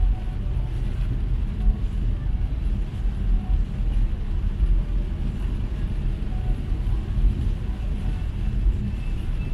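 Steady low rumble of a car driving through heavy rain, heard from inside the cabin: road and engine noise with a fainter hiss above it.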